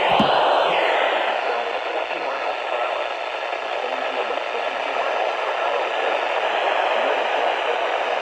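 Radio static: a steady hiss of poor off-air reception, with a couple of clicks in the first second.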